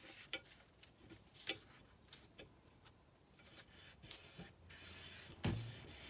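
Faint rustling and rubbing of fingers pressing and smoothing glued decoupage paper onto a painted tray, with a few light taps.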